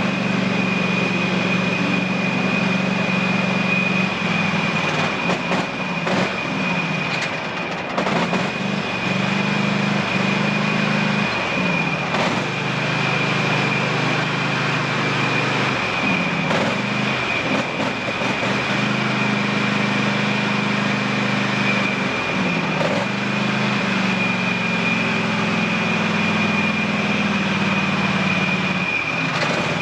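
Husqvarna TS348D lawn tractor engine running under way, its pitch dipping and recovering several times, with a steady high whine above it and scattered light clicks and rattles.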